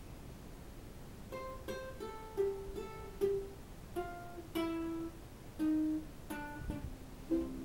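Ukulele picked one note at a time, about ten single notes in a slow, uneven melody starting about a second in; near the end several notes sound together as chords begin to be strummed.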